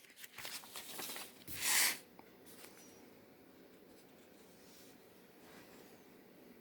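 Soft scratching and rustling noises for about two seconds, the loudest a short scrape near the two-second mark, then near silence.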